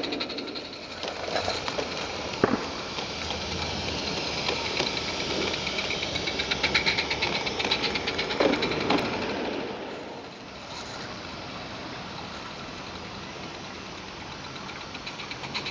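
Roundhouse live-steam Fowler locomotive running in garden-railway scale with a short train: a fast, even chuffing rhythm with the clatter of small wheels on track. There is a sharp click about two and a half seconds in, and the sound drops away about two-thirds through before the beat picks up again near the end.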